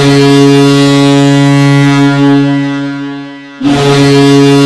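Ice hockey goal horn blowing: a long, low blast that tapers off, followed about three and a half seconds in by a second blast.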